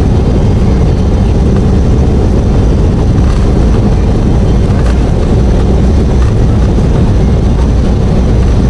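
Airliner during takeoff: a loud, steady low rumble of engines and rushing air that holds even throughout.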